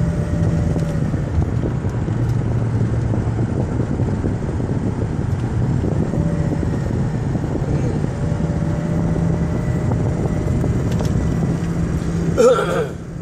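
Ford 6.0 Power Stroke turbodiesel V8 running steadily, heard from inside the cab, with the fan clutch noise the owner is showing. A short, louder noise comes just before the end.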